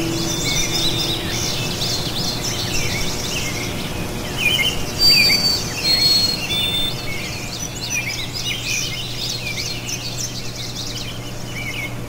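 Many small birds chirping and twittering together in a busy, overlapping chorus, with a few short clear whistles about five seconds in. Faint instrumental music runs underneath.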